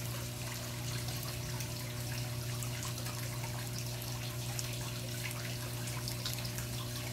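Water trickling and splashing steadily from the PVC pipe outlets of a backyard aquaponics system into the pond, over the steady low hum of the running water pump.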